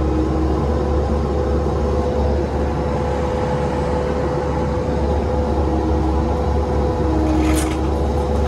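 Bobcat 337 mini excavator's diesel engine running steadily, heard from inside the cab, with a steady hydraulic whine and a second, lower whine that comes and goes as the boom and bucket are worked. A short scraping noise comes near the end.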